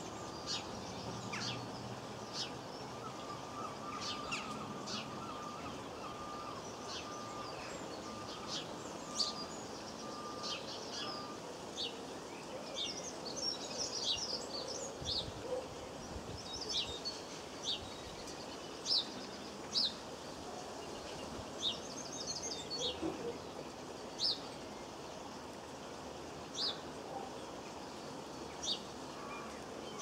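Garden birds calling: scattered short, high chirps with a few brief twittering runs, over a steady outdoor hiss. A faint steady tone sits underneath for the first ten seconds or so.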